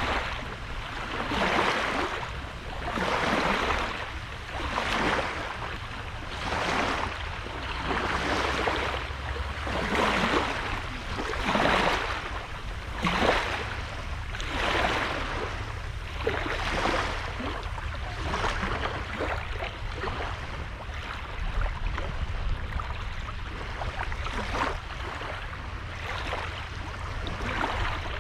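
Small sea waves breaking and washing onto a sandy beach, a swell of hiss about every two seconds that grows weaker in the second half, over a steady low rumble.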